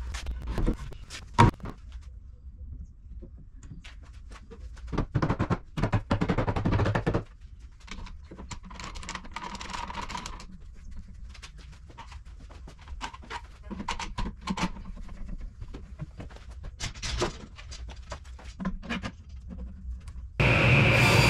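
Wooden cabinet panels and bar clamps being handled: scattered knocks, thuds and rubbing. Music comes in suddenly near the end.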